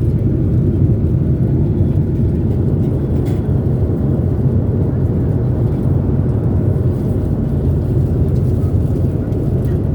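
Steady low cabin noise inside an airliner, from the engines and the air rushing past the fuselage.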